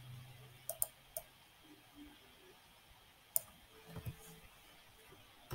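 A few sharp, isolated clicks of a computer mouse and keyboard as a sentence of text is selected and deleted, about four clicks spread over the first three and a half seconds.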